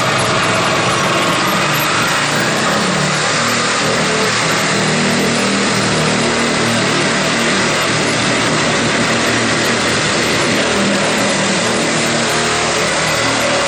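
Hand-held air-powered sheet-metal cutter running steadily as it cuts through the steel front nose panel of a 1967 VW Bus.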